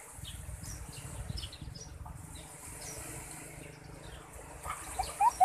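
Faint outdoor ambience: a low, uneven rumble with a few faint short chirps near the end.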